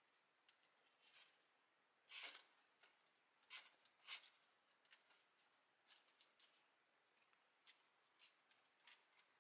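Faint, scattered short clicks and rustles of something being handled, with a few louder ones between about two and four seconds in.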